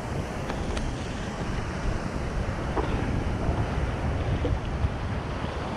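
Ocean surf and sea water sloshing at the water's surface, with a low wind rumble on the microphone.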